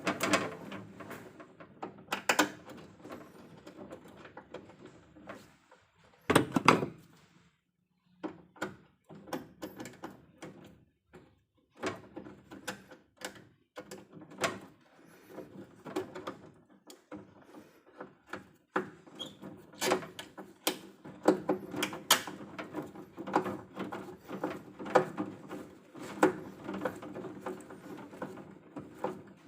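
Irregular clicks, taps and knocks of hands and tools at work on metal parts, with one louder knock about six seconds in, short pauses, then a busier run of clicking and tapping.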